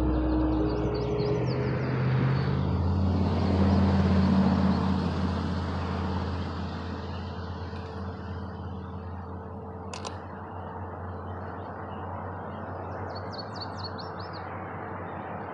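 Road traffic: a vehicle passing, a steady low rumble that swells to its loudest about four seconds in and then eases to a lower hum. A bird chirps in short runs near the start and near the end, and there is one sharp click about ten seconds in.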